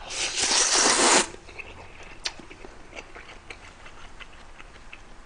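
A man slurping noodles from beef noodle soup in one loud rush lasting about a second, then chewing with faint small mouth clicks.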